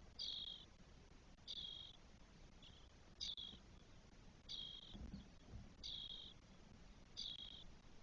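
Spotless starling nestlings begging from inside the nest: short, high calls repeated at a steady pace, about one every second and a quarter.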